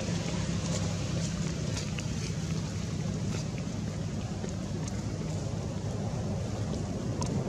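Steady low rumble with a few faint scattered ticks over it.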